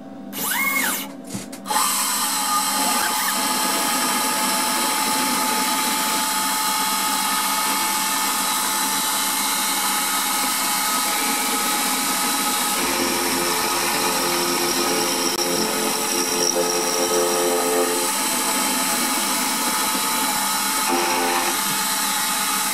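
CNC milling spindle running steadily with a many-toned whine as its end mill face-mills a cast aluminium part, taking 2 mm off the surface. A short rising tone comes first, and the full running sound comes in about two seconds in.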